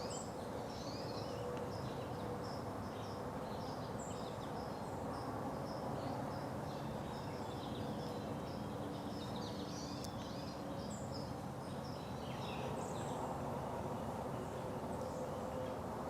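Small birds chirping in short, high notes throughout, over a steady background hiss of outdoor ambience.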